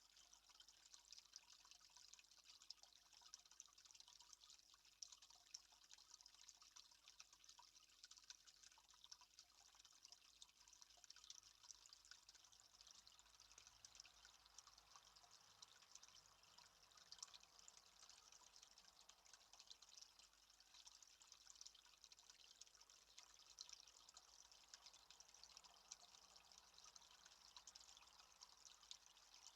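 Near silence, with a faint, steady trickle of water full of tiny drips.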